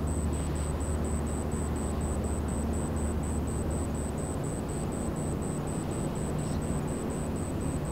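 Large car ferry's engines running as she gets under way, a steady low drone with a few held low tones and a hiss of noise above them.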